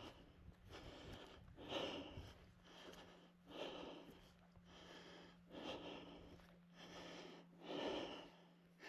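Faint, heavy breathing of a hiker on an uphill climb, a soft breath about every two seconds.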